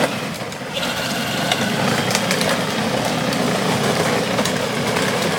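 Battery-powered kids' ride-on ATV driving along a wet paved path: its electric drive motors and gearboxes whirring steadily and its plastic wheels rolling on the pavement, with scattered small clicks.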